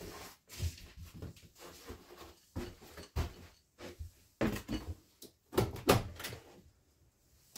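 A series of irregular knocks, bumps and scuffs, with the loudest cluster about four and a half to six and a half seconds in, then a brief lull.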